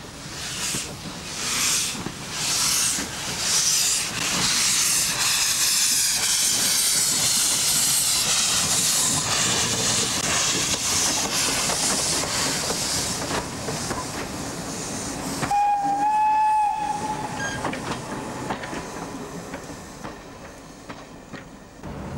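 Peckett 0-4-0 saddle tank steam locomotive pulling away with its train: slow exhaust chuffs at first, merging into a steady steam hiss, then one short whistle blast about 16 seconds in, after which the sound fades.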